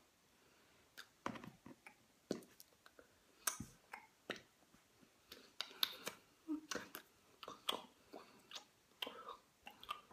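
A person's quiet mouth noises: irregular clicks and smacks with a few breathy, whispered sounds among them, starting about a second in.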